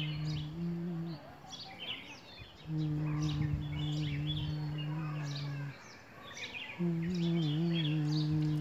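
A loud, steady, low droning tone that comes in stretches of about three seconds with short breaks between, over birds chirping throughout.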